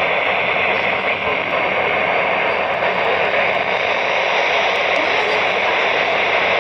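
Steady hiss of static from a weather radio receiver on a weak signal. Any broadcast voice is buried under the noise.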